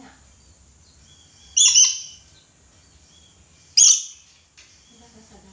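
Red lory giving two loud, harsh screeching calls about two seconds apart, with faint chattering between them.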